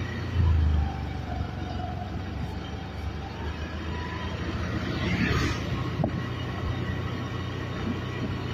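Steady low rumble of a moving vehicle's engine and tyres, with a louder thump about half a second in and a brief rush of noise around five seconds.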